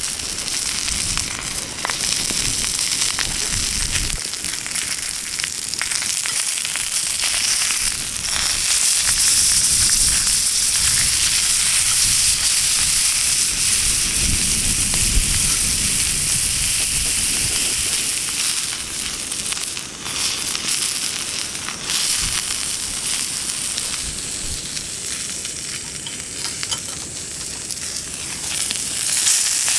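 Meat sizzling over a wood fire in a small box stove: a steady high sizzle with scattered crackles and pops.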